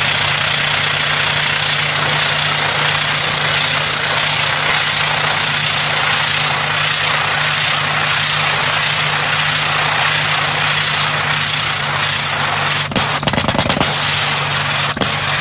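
Drill rig fitted with a Yonda YDR30A hydraulic rotary head drilling with a down-the-hole hammer: loud, continuous rapid hammering over the steady hum of the rig's engine. Near the end there is a short cluster of separate sharp knocks.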